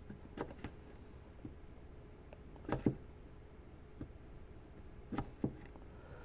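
A small metal tool scraping and picking at the rim of an old radio speaker's steel frame, working loose the remains of the paper cone edge. It comes as a few short, uneven scrapes and clicks, the loudest about three seconds in and again a little after five seconds.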